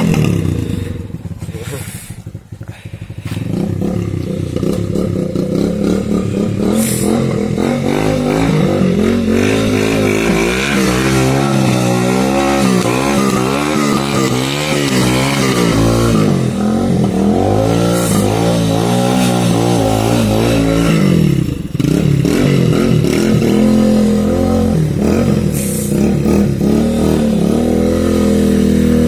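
Off-road motorcycle engine running under changing throttle, its pitch rising and falling again and again. It is quieter at first, grows louder a few seconds in, and briefly drops off about two-thirds of the way through before picking up again.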